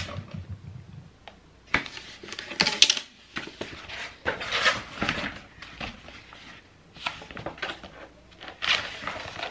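Paper rustling as a large rolled sheet is pulled out of a cardboard tube and unrolled, with a couple of sharp knocks in the first few seconds.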